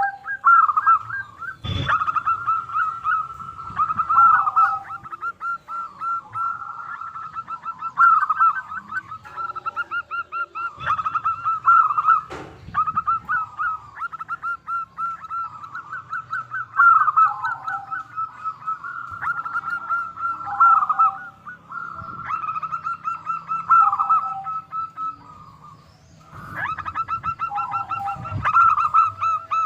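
Zebra dove (perkutut) cooing: phrase after phrase of quick staccato coos, each phrase dropping to a lower note at its end, one phrase every few seconds. Two sharp clicks sound, about two seconds in and again about twelve seconds in.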